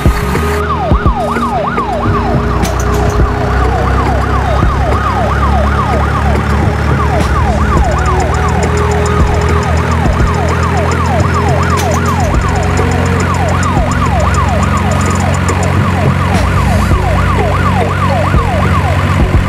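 Emergency-vehicle siren in a fast yelp, its pitch swooping up and down several times a second, over a steady low hum.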